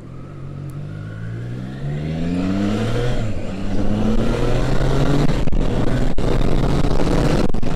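Triumph Trident 660's three-cylinder engine accelerating hard. Its pitch climbs, drops at a gear change about three seconds in, and climbs again, while a rushing noise builds as speed rises.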